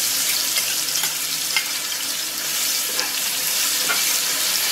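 Ginger-garlic paste sizzling steadily in hot mustard oil in a kadai as it is stirred with a steel spoon. The spoon makes a few light clicks against the pan.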